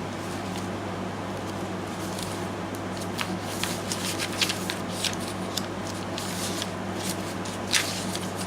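Paper rustling and crinkling as journal pages, envelopes and tags are handled, in scattered crackly bursts from about three seconds in, over a steady low hum.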